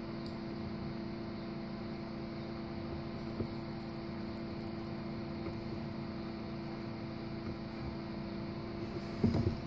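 Steady electrical mains hum, several evenly spaced tones held level throughout, with a faint click about three and a half seconds in and a brief louder sound just before the end.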